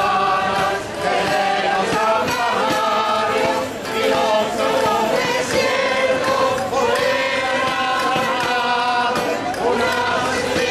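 A choir of women and men singing together, holding sustained notes in phrases, with brief breaks between phrases about a second in and near four seconds.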